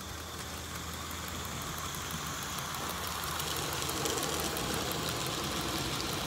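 Small garden-railway live steam tank locomotive running with a train of wagons, its rapid exhaust chuffing and steam hiss growing louder as it comes closer.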